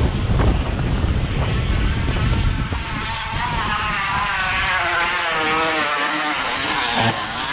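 Plastic bottle wedged against a bicycle wheel's spokes, buzzing like a motorbike engine, its pitch wavering up and down with the wheel's speed. Wind rumbles on the microphone in the first couple of seconds.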